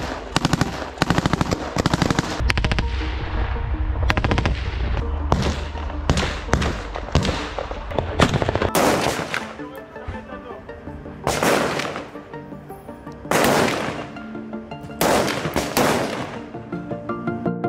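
Soldiers' assault rifles firing in rapid bursts and single shots, sharp cracks coming in quick runs. In the second half the shots thin out to several louder, longer blasts, with music faintly beneath.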